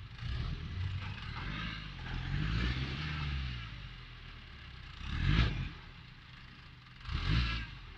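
Suzuki Vitara engine revving up and down as the 4x4 crawls over rocks in a creek bed, with two short, louder bursts of clatter and scraping about five and seven seconds in.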